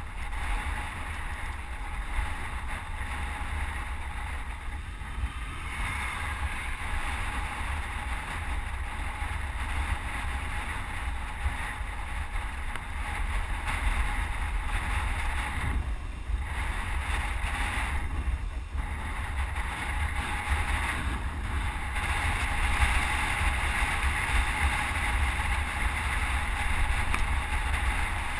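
Wind rushing over a helmet-mounted GoPro's microphone as the wearer rides a road bike, a steady low buffeting rumble with a hiss above it that grows a little louder about two-thirds of the way through.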